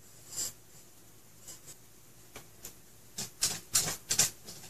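Makeup brush rubbing over a blush compact and skin: one soft stroke at the start, then a quick run of about five brushing strokes about three seconds in.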